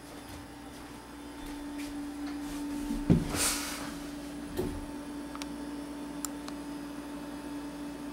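Steady hum from running computer equipment. About three seconds in there is a thump and a short rushing hiss, and a lighter knock a second or so later.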